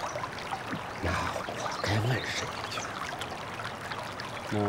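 Steady rushing background noise, like running water, with a couple of short low vocal sounds about a second and two seconds in.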